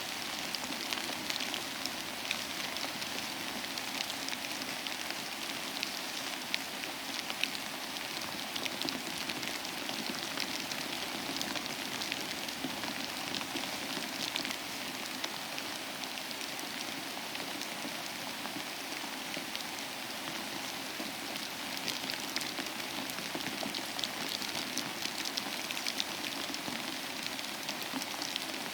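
Steady rain falling, an even hiss sprinkled with many small individual drop ticks.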